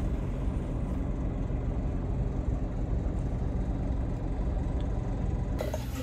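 Steady low road and engine rumble heard inside the cabin of a moving car. Near the end it gives way to quieter room sound.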